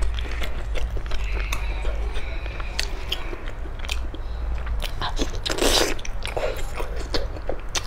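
Close-miked eating of sticky sauce-glazed pork: chewing and biting with many short wet mouth clicks, and one louder, longer bite about five and a half seconds in. A low steady hum runs underneath.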